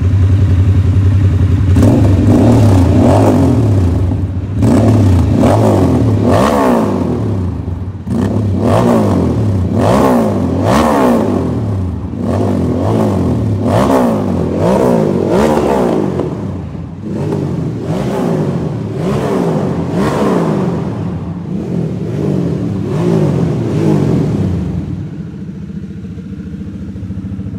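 Harley-Davidson Sportster S's 1250 cc V-twin, breathing through an aftermarket full exhaust with dual exit, revved over and over in quick blips from idle, each rev rising and falling with a deep bass tone. It settles back to a steady idle near the end.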